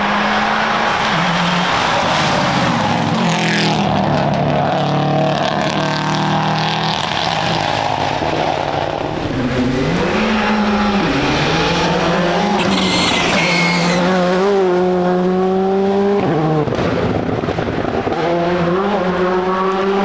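Rally cars at full throttle on a tarmac stage, among them a Subaru Impreza: engines revving up and dropping through gear changes, with a couple of short high squeals.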